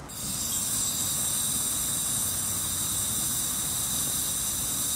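Fire extinguisher discharging: a steady, loud hiss of spray that starts abruptly.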